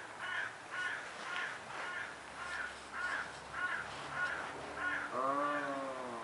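Animal calling: a run of about ten short calls, roughly two a second, then one longer, lower call that dips slightly in pitch near the end.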